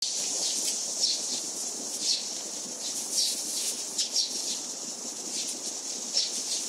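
Birds chirping: short high calls every second or so over a steady high hiss.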